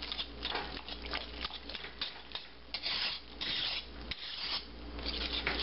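Wire whisk stirring thick chili in a stainless steel pot, a run of uneven scraping strokes against the metal, roughly two a second, as ground cumin is worked in.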